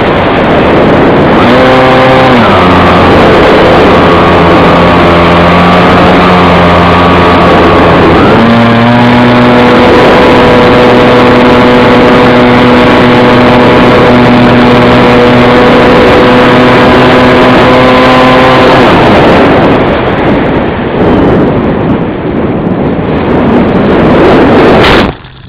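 An engine running at a steady speed under a loud rush of wind noise. Its pitch drops about two seconds in, rises again about eight seconds in, and the engine fades out after about nineteen seconds, leaving only the wind rush.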